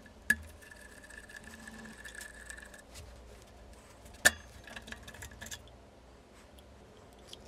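Metal parts of a hardness tester's spindle assembly being handled and taken apart: two sharp metallic clicks, one right at the start and one about four seconds in, with light scraping and rubbing of steel parts between them. A faint thin high tone runs for the first couple of seconds, and the handling grows quieter after about five and a half seconds.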